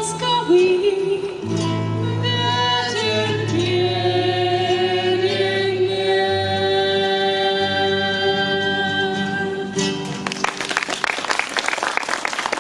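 Singing with instrumental backing finishes a song on one long held note; about ten seconds in the music stops and applause takes over.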